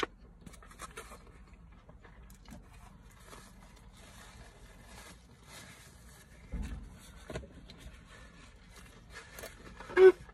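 A person eating an onion ring: faint crunching and rustling, a low thump about six and a half seconds in, and a louder short mouth sound near the end.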